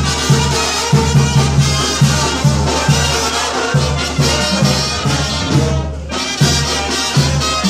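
Live brass band playing an instrumental passage: trumpets and trombones over a steady, rhythmic bass line.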